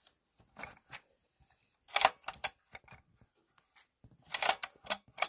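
Handling noise: scattered clicks, with two short bursts of clattering and rattling about two seconds in and again about four to five seconds in.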